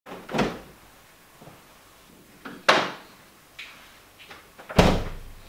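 Kitchen doors being opened and shut: three knocks about two seconds apart with light clicks in between, the last and loudest a refrigerator door closing with a thud.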